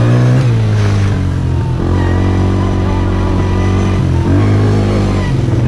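Four-wheeler (ATV) engine running while riding a dirt trail, its note dipping and rising a couple of times as the throttle changes.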